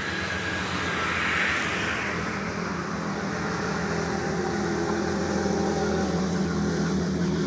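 An engine running steadily, heard as a low hum, with a hiss that swells and fades about a second in.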